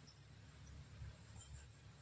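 Near silence: faint low hum of room tone.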